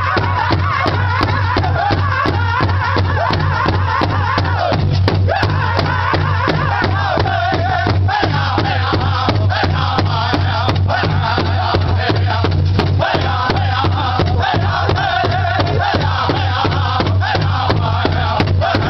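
Powwow drum group singing high in unison over a big bass drum struck in a steady, even beat. A low steady hum runs underneath.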